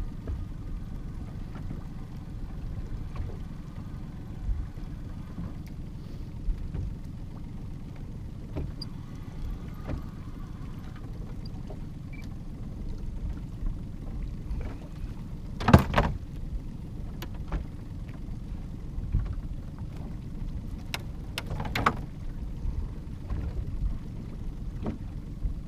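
Steady low rumble of wind and water around a small fishing boat, with a few sharp knocks, the loudest two past the middle and near the end.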